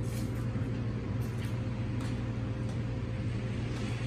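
Steady low mechanical hum with a few faint ticks.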